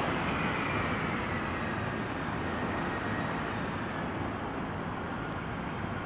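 Steady rushing noise of heavy rain and wind.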